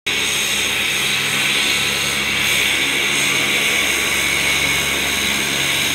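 Twin-engine turboprop airliner coming in to land, its engines and propellers running steadily: a strong high hiss over a low, even propeller hum.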